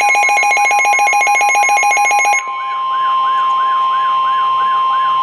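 Weather radio alert tones: a steady single tone near 1 kHz, the NOAA Weather Radio warning alarm tone, with a repeating warble above it. For the first two and a half seconds a fast-pulsing buzzy electronic alarm sounds on top, then cuts off suddenly while the steady tone and the warble go on.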